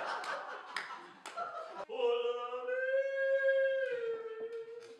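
Group laughter and talk with a few sharp clicks. About two seconds in, a single voice starts a long, high sung note, the first note of a yodel. It slides a little lower partway through and holds on.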